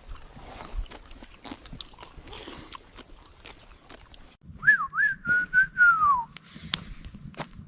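A short whistle about halfway through, wavering and then sliding down in pitch, over faint scattered clicks.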